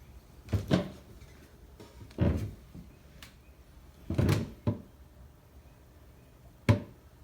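About five dull knocks and thumps at irregular intervals, the last a short sharp one.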